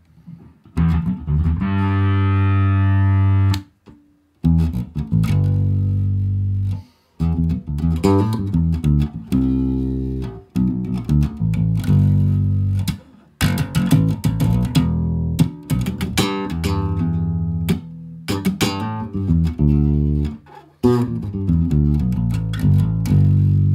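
Guitar-and-bass music: plucked notes and held low chords, breaking off briefly every few seconds.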